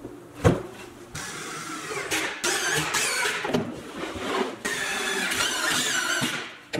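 Cordless drill/driver running in several bursts as it drives pocket-hole screws into a plywood drawer box, the motor whine wavering in pitch as the screws go in. A thump about half a second in.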